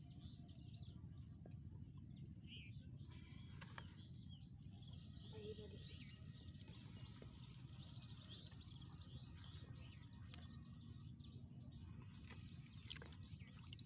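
Near silence: faint outdoor ambience with a low steady rumble, a few faint bird chirps, and two small clicks near the end.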